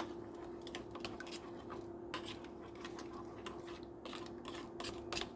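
Scattered light clicks and clinks of kitchenware being handled, over a steady electrical hum.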